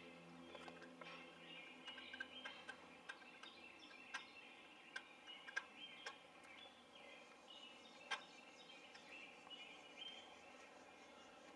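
Faint outdoor ambience of small birds chirping, with a scattering of sharp clicks, the loudest about eight seconds in.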